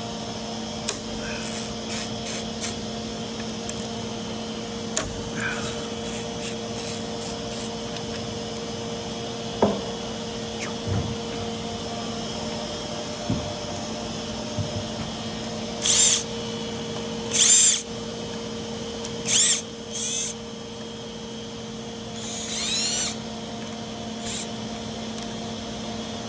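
Power tool with a Torx bit backing out the bolts of a plate on a Subaru STI six-speed transmission case: five short whirring bursts in the second half, the last about a second long and rising in pitch, with a few light metal clicks between.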